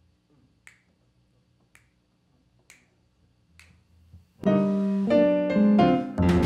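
Finger snaps about once a second, four of them, counting in the tempo. About four and a half seconds in, the jazz quartet starts playing, with piano chords loudest over the bass.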